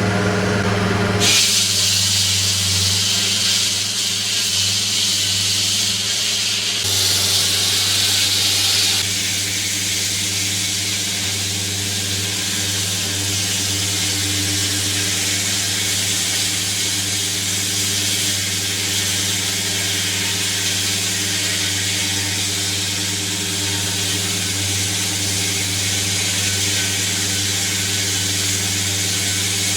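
Water-cooled diamond-blade concrete saw cutting road: its engine running at a steady hum under the hiss and grind of the blade in the pavement. The grinding hiss sets in just over a second in and is briefly sharper around a quarter of the way through.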